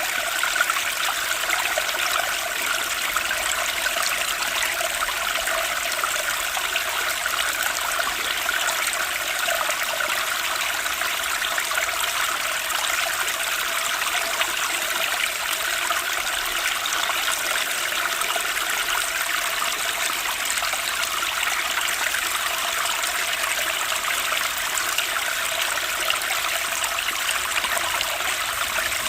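Flowing stream water babbling and trickling steadily, an even rushing wash with no breaks.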